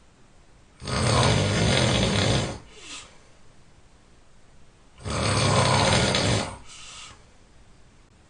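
A person snoring loudly: two long snores about four seconds apart, each followed by a short, fainter breath.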